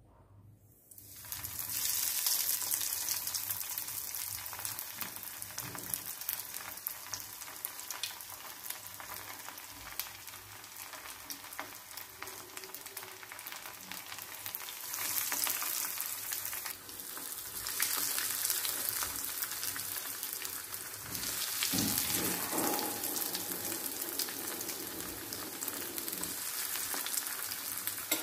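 Breadcrumb-coated paneer fingers sizzling in hot oil in a frying pan. The sizzle starts about a second in and grows louder several times as more pieces go into the oil.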